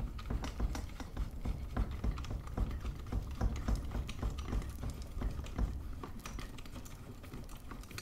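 Small irregular clicks and scrapes as the side-mount thumbscrews of a Blue Yeti microphone are twisted loose by hand. Fingers handle the metal microphone body over a low rumble.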